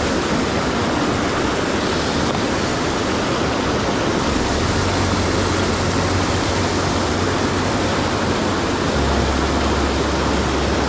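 Mountain stream water rushing steadily, a constant hiss of flowing water.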